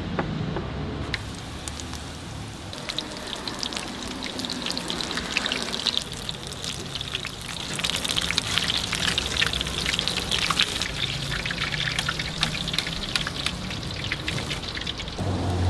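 Battered shrimp deep-frying in a wok of hot oil, a dense crackling sizzle. It builds a few seconds in and is strongest over the second half.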